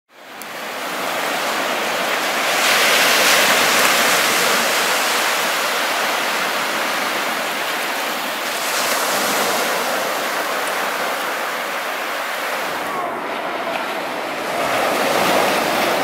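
Small surf waves washing up a sandy beach and draining back, a steady foamy rush that swells about three seconds in and again near the end.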